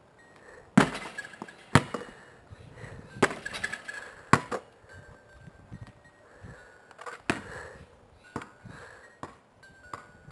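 Basketball being shot at a driveway hoop: a series of sharp thuds as it strikes the backboard and rim and bounces on the concrete, some followed by a brief ring.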